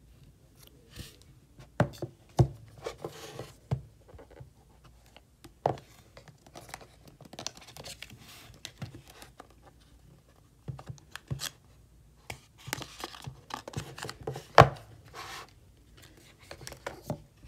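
Paper and cardboard phone packaging being handled: paper inserts rustling and sliding against the box, with scattered taps and knocks. The loudest is a sharp knock near the end.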